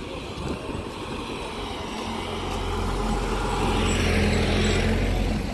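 A car drives up and passes close by: its engine hum and tyre noise grow louder over a few seconds, loudest about four seconds in, then ease off.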